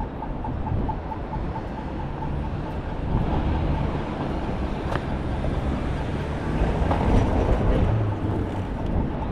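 City street traffic: a heavy vehicle rumbles past, getting louder from about three seconds in. A rapid, evenly spaced beeping stops just after the start.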